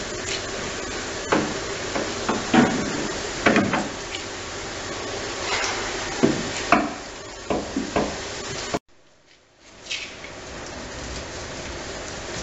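Irregular knocks and clatter, about a dozen, over a steady hiss; the sound cuts off suddenly about nine seconds in, and the hiss returns more quietly.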